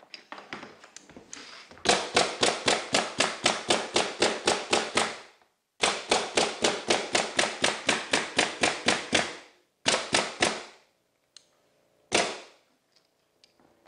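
Pneumatic underlayment stapler driving staples into plywood underlayment in quick succession, a sharp crack with each shot at about five a second. Two long runs of shots, then a couple more and a single last shot near the end.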